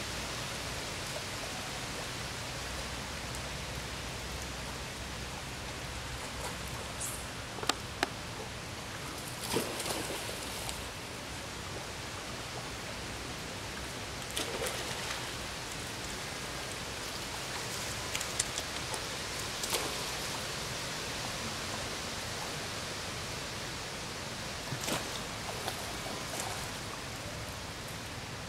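Steady outdoor background hiss. A few brief, faint clicks and short sharp sounds stand out here and there.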